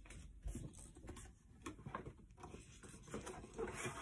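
Cardboard toy box being handled and opened: faint, irregular scrapes, taps and rustles of hands on the cardboard, a little louder near the end.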